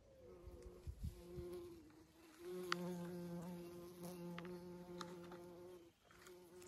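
A bee buzzing close by in flight: a steady hum that grows louder about two and a half seconds in and breaks off briefly near the end, with a few light ticks.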